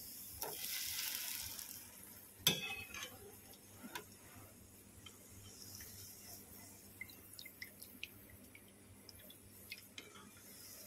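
Steel slotted skimmer working between pans: a brief splash as fried gulab jamuns slide into sugar syrup, then a sharp clink of the skimmer against the pan about two and a half seconds in. Faint scattered crackles of hot oil follow as jamuns are fried and lifted out.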